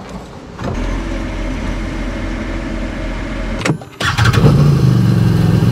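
Can-Am ATV engine running, with a steady low hum; about four seconds in, after a brief break, it comes in suddenly louder and runs steadily, as at start-up.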